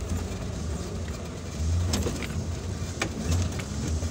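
Off-road 4x4's engine running low, heard from inside the cabin as it crawls over a rough dirt track, swelling twice as it works harder. Sharp knocks and rattles from the body and suspension come about two and three seconds in.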